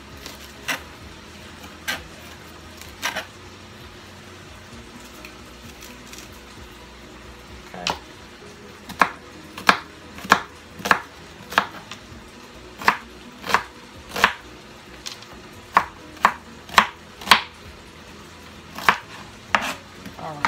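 Chef's knife chopping an onion on a plastic cutting board: a few scattered knocks at first, a pause of a few seconds, then a steady run of more than a dozen chops, a little over one a second.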